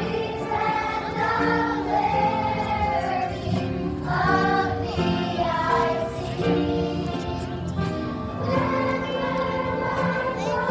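A choir of children's voices singing a song with instrumental accompaniment, holding notes and changing pitch every second or so.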